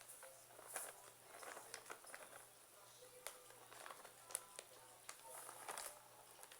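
Faint, scattered clicks and soft taps from stirring a wet homemade slime mixture in a container, against near silence.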